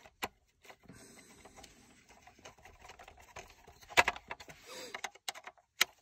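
Light clicks and rattles of a small driver and screws against the plastic four-wheel-drive selector switch housing as the screws are started by hand. There is a sharp click about a quarter second in, the loudest about four seconds in, and another just before the end.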